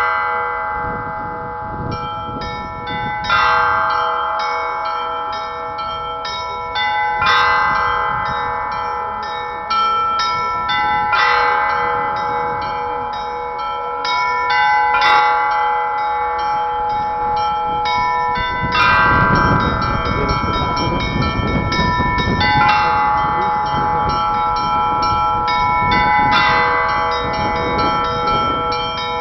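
A set of Pakshenga bells rung in Russian style: a deep bell struck about every four seconds, with a quick pattern of smaller, higher bells chiming between the strokes, all ringing on over one another.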